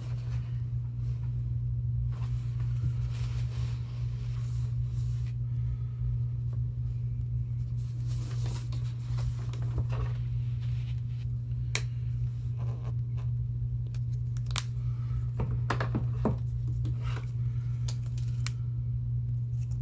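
A steady low electrical-sounding hum, with scattered small clicks, taps and scrapes of paint bottle and paper being handled on a table; the handling sounds are sharpest around the middle and just past it.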